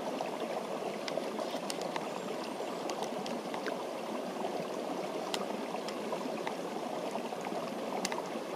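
Steady rushing of a nearby stream, with a few faint high clicks scattered through it.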